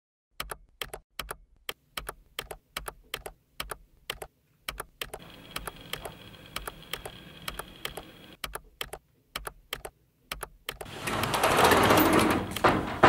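Computer keyboard keys clicking in an even rhythm, about three keystrokes a second. About eleven seconds in, a louder rushing noise rises over them.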